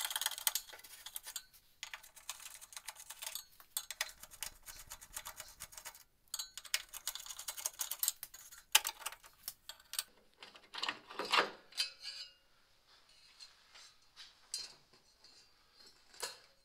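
Screwdriver clicking and scraping against the grille as the screws holding a 1973 Corvette's center grille section are backed out: many quick clicks for about ten seconds, then a louder scrape and rattle near eleven seconds in as the grille section comes loose, followed by a few faint ticks.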